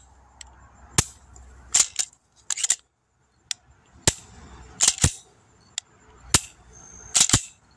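Glock-pattern pistol with a PSA Dagger slide being dry-fired and its slide cycled to reset the trigger: a series of sharp metallic clicks, some in quick pairs, roughly one a second.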